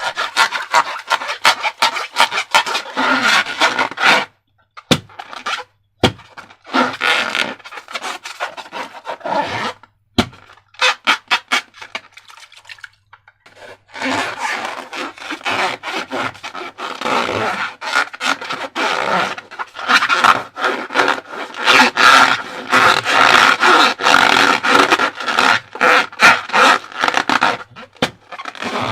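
Slime being handled and squeezed by hand: a dense run of sticky clicks, squelches and scrapes, broken by two short pauses.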